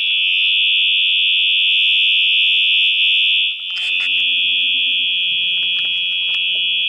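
Function generator sounding through its built-in speaker an imitation of a Siemens UMMT / Cerberus Pyrotronics Multitone fire alarm horn: a loud, steady, high-pitched tone, with a brief dip and a few clicks about three and a half seconds in.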